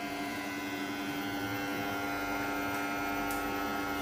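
Steady hum made of several fixed tones over a faint hiss.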